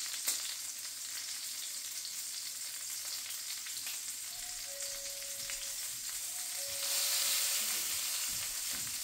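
Sausage links sizzling steadily in a frying pan, the sizzle swelling louder for a moment about seven seconds in.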